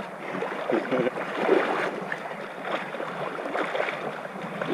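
River water splashing and sloshing in irregular bursts as a swimmer strokes through it close to a camera held at the water's surface.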